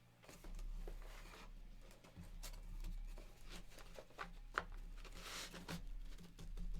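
Trading cards being handled: soft rustling, light taps and a brief swish about five seconds in.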